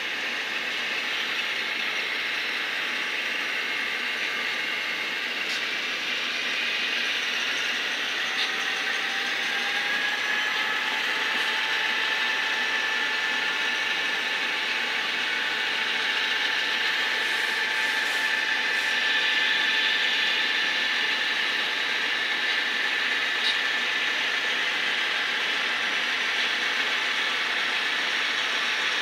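A model train's electric motor and gearing whirr steadily, with a thin whine that rises slightly in pitch about a third of the way in and then holds, growing a little louder.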